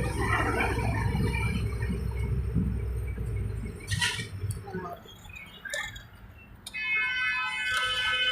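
Truck engine running with a low rumble in the cab, which drops away about three and a half seconds in. A few light clicks and knocks follow, then near the end a steady electronic tone of several pitches.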